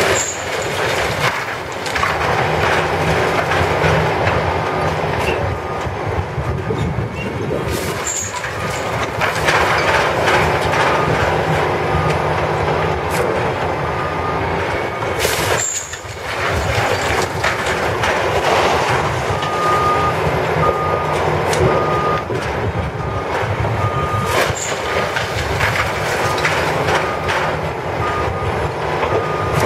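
Heavy demolition machinery running, with a reversing alarm beeping at a steady rhythm through the second half and a few sharp knocks.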